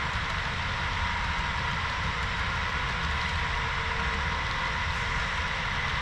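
Diesel locomotive sound from the LokSound sound decoders of a five-unit HO-scale BNSF lashup, playing through the models' small speakers: a steady engine drone with a low rumble beneath it.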